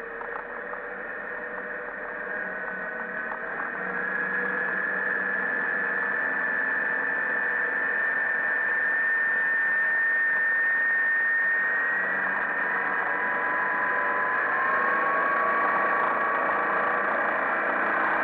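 MerCruiser 140 hp 3.0-litre four-cylinder sterndrive running under way, mixed with the rush of the wake. It grows louder over the first several seconds, and its whine steps up in pitch twice.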